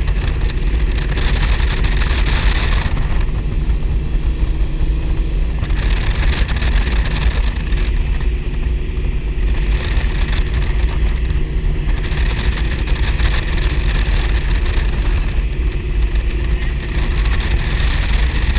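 High-performance powerboat engines running steadily at speed, deep and loud, with a hiss that swells and fades every few seconds.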